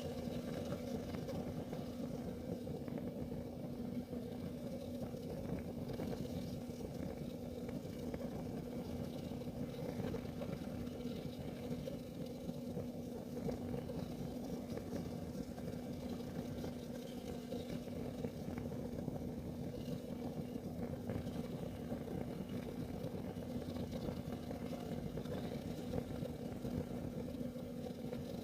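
Kerosene heater burning with a steady low rumble and a constant low hum.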